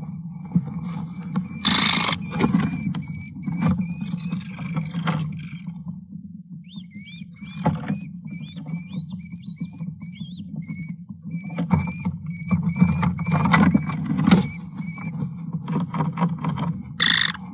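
American kestrels in a nest box: a run of short, high chirps repeating about three times a second, with scratching and rustling as the birds move on the nest, over a steady low hum. Two brief loud flutters, about two seconds in and near the end, as the adult kestrel leaves and re-enters the box.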